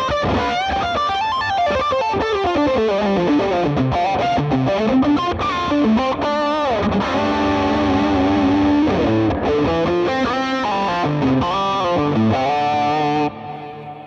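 Electric guitar lead played through a Fractal FM9 preset: overdriven tone from the Texas Star (Mesa Boogie Lone Star) amp model with EL34 power tubes, plus a low-mix Aurora Delay. Quick melodic runs, a bent note about six and a half seconds in and some held notes. The playing stops near the end and the delay tail fades.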